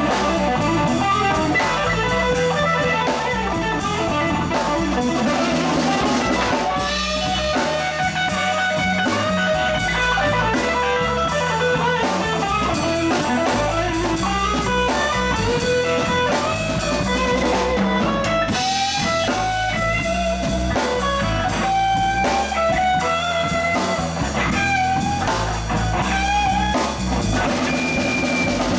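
Live band playing with no singing: an electric guitar leads with bending single-note lines over electric bass and a drum kit.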